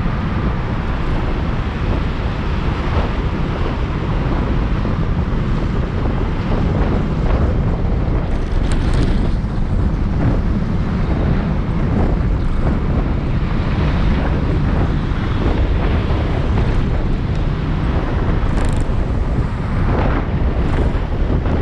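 Steady wind rush over the microphone of a camera riding on a moving Yamaha Aerox motor scooter, with low road and engine rumble underneath.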